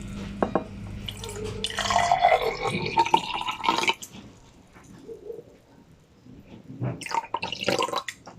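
Water poured from a jug into glass wine glasses, splashing and trickling, in two pours: one from about a second in for a few seconds and a shorter one near the end. Each glass is filled a little more than the last, to tune them to different pitches.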